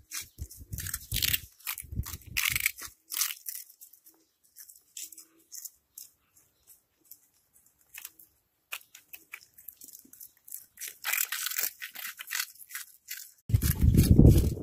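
Cats crunching and chewing small crispy puffed snack balls, with quick irregular crackling bites that thin out in the middle and pick up again later. Near the end a loud low rumble covers the crunching.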